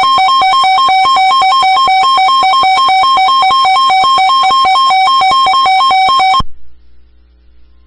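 Emergency alert tone announcing a severe thunderstorm warning: a loud electronic warble switching rapidly between two notes, which cuts off abruptly after about six seconds, leaving a faint low hum.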